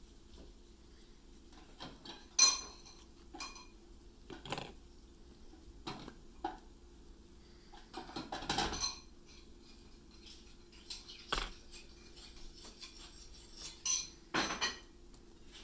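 Scattered light clicks and taps of a fountain pen's parts being handled as it is taken apart: the body unscrewed, the ink reservoir pulled out, then the nib worked loose. The sharpest click comes about two and a half seconds in, with small clusters of clicks near the middle and near the end.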